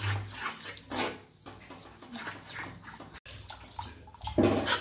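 Metal spoon stirring wet semolina upma in a kadhai: a run of squelching, scraping strokes as water is worked in to keep lumps from forming, with one louder scrape against the pan near the end.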